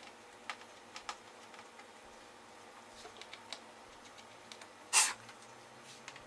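Small metallic clicks and ticks of a screwdriver taking out the screws that hold a laptop screen in its lid, with one louder, brief clatter about five seconds in.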